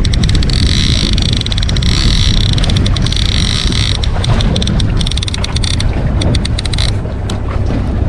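A boat running on the water with a steady low rumble and wind buffeting the microphone. Over it is a higher hiss with rapid fine ticking that comes and goes, stopping briefly about three and a half seconds in and fading out near seven seconds.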